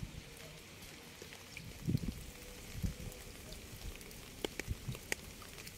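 Rain falling: a steady hiss with scattered drops ticking, and a few heavier drops landing with low thuds.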